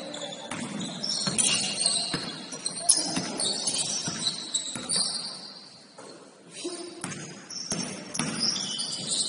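Basketball game sounds in a gym: the ball bouncing on the court, high sneaker squeaks and players' voices, dipping briefly about six seconds in.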